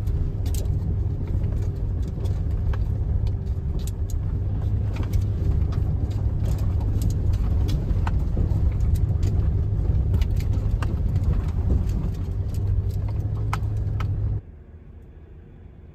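Pickup truck driving slowly on a rough gravel road, heard from inside the cab: a steady low rumble of engine and tyres with frequent sharp ticks and clicks of gravel. The sound drops away suddenly near the end.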